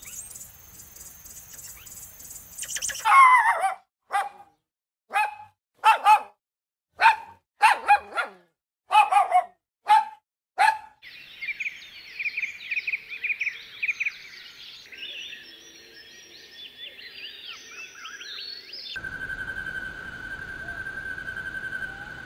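Animal calls: a series of about ten short, sharp calls, roughly one a second, followed by several seconds of dense high chirping and twittering. Near the end comes a steady high whistling tone.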